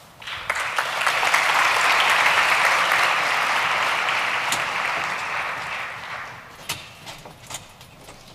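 Large audience applauding: the clapping swells over the first second, holds, then dies away about six seconds in, leaving a few last scattered claps.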